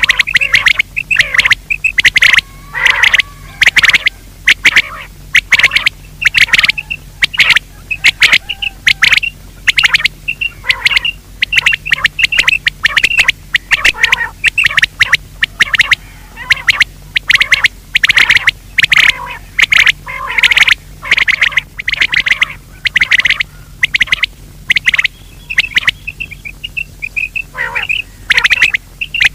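Loud recorded game-bird calls: short, sharp notes repeated rapidly and overlapping with hardly a break, a lure track for calling quail or partridge-type birds.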